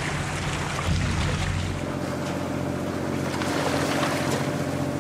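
Steady drone of a sailing catamaran's engine under the rush of water along the hull. The hum changes pitch pattern about two seconds in.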